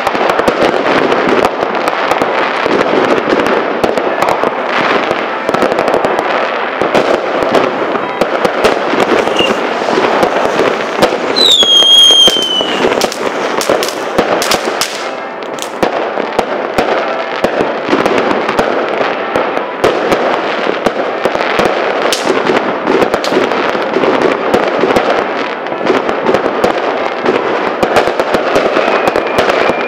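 Fireworks and firecrackers going off in a dense, continuous barrage of bangs and crackling, with a short whistle falling in pitch about twelve seconds in.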